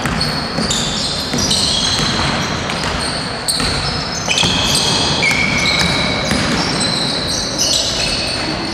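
Basketball shoes squeaking again and again on a gym floor as players run and cut, with a basketball bouncing.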